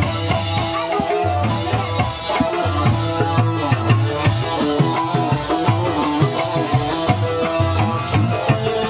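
Live band playing an instrumental passage over loudspeakers: hand drums, a Korg Pa arranger keyboard and an electric guitar over a steady bass line. The drumming gets busier about halfway through.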